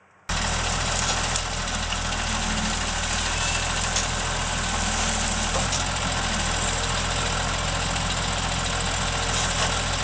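John Deere 3650 tractor's diesel engine running at a steady speed while it powers a hydraulic forestry crane loading logs. The sound starts abruptly a moment in.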